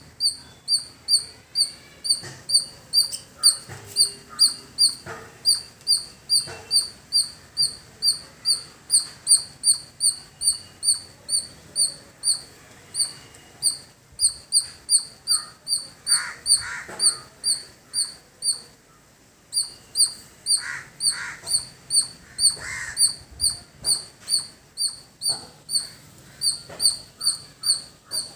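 A squirrel calling: a long run of short, sharp, high-pitched chips, about two a second, with a brief pause about two-thirds of the way through.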